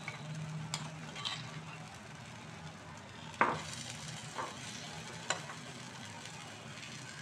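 Zucchini pancake batter sizzling gently in an oiled nonstick pan while a metal spoon spreads and presses it. The spoon scrapes and taps the pan about five times; the loudest tap comes about three and a half seconds in.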